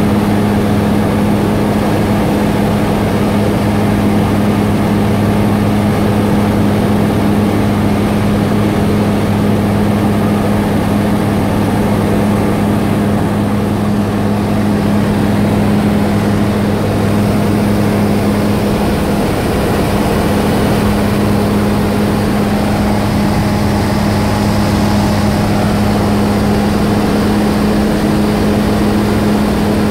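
Aeropro Eurofox light aircraft's engine and propeller droning steadily in level flight, heard from inside the cabin. The lowest note of the drone fades about two-thirds of the way through.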